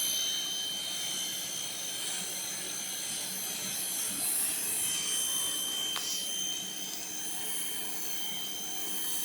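Sun Joe electric pressure washer running, its motor and pump giving a steady high whine over the hiss of the water spray.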